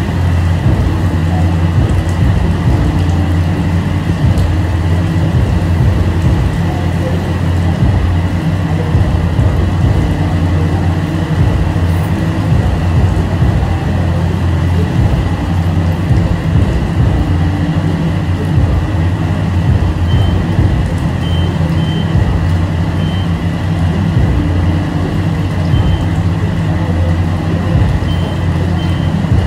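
Water spraying and pattering steadily like rain in a car wash bay, over a constant low hum and a thin, steady high whine.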